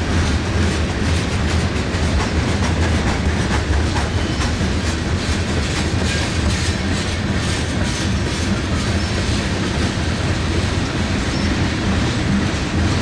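Freight train's tank cars rolling past at close range: a steady rumble with a continual clicking of wheels over the track.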